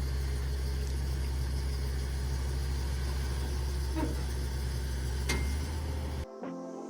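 A vehicle engine idling with a steady low hum and a couple of light knocks. It cuts off abruptly near the end, where music begins.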